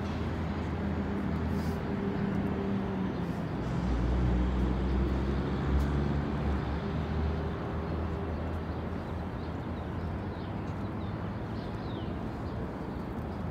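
Street noise with a vehicle's engine running, a low steady hum that grows louder about four seconds in and eases back a few seconds later.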